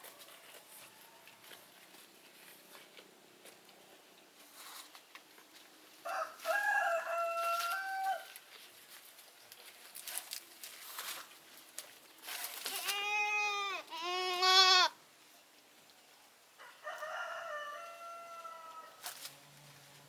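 Goats bleating: a drawn-out call about six seconds in, two loud quavering bleats back to back about two-thirds of the way through, and another long call near the end.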